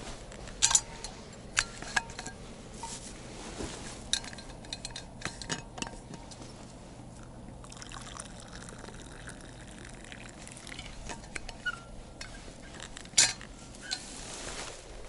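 A steel vacuum flask being opened and a drink poured from it into its steel cup, with sharp clicks and clinks of the lid and cup, the loudest knock near the end.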